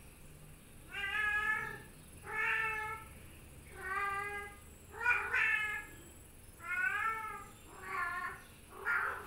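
Domestic cat meowing over and over, about seven short meows a little over a second apart. It is an affectionate cat asking to be petted.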